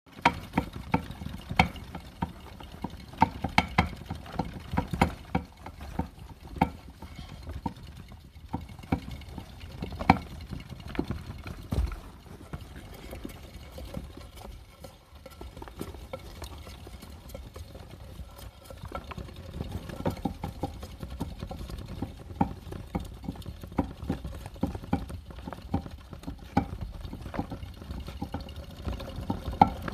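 Clear plastic hamster exercise wheels turning as hamsters run in them: a steady low rumble with irregular clicks and knocks of the wheels rattling on their stands.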